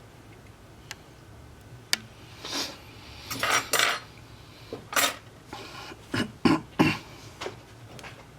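Small metal repair tools and parts clinking and scraping on a hard work surface while an Apple Watch is worked on: two sharp clicks, then a run of short scrapes and clatters.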